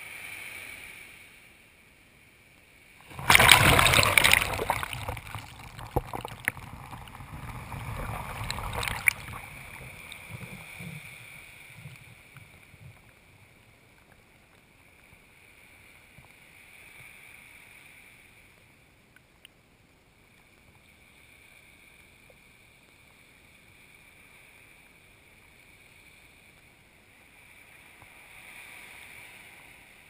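Small wave washing up the sand right at a camera sitting at the water's edge: a loud sudden rush of water about three seconds in that fizzes and drains back down the beach over the next several seconds, then only faint swash.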